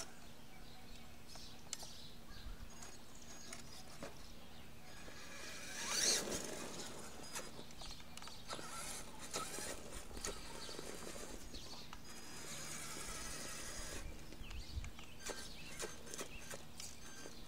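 Electric Traxxas E-Maxx 3906 RC monster truck driving on asphalt, its motors and tyres loudest in one swell about six seconds in as it passes close, then fainter running noise with scattered small clicks as it drives about.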